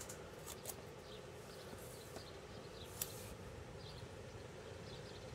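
Faint handling of card stock and double-sided tape: a few soft clicks and crinkles, the sharpest about three seconds in, over a steady low hum.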